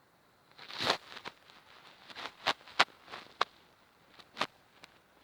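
Small plastic toy figures being handled: a short rustle about a second in, then several sharp, separate clicks and light knocks as they are picked up and set down.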